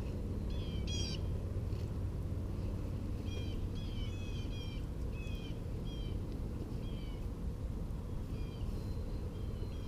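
A bird calling over and over in short, downward-sliding chirps, one or two a second, with a steady low rumble underneath.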